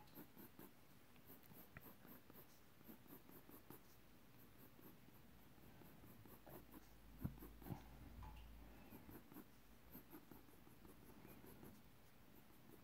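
Faint scratching of a pencil drawing on sketchbook paper in many short strokes, with a couple of slightly louder taps near the middle.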